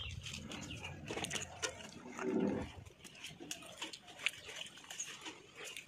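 Small snaps and rustles of Malabar spinach (poi saag) stems and leaves being plucked by hand, with a short animal grunt about two seconds in.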